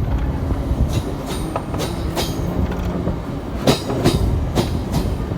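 Train running, heard from on board: a steady loud rumble with irregular sharp clacks of the wheels over the rails.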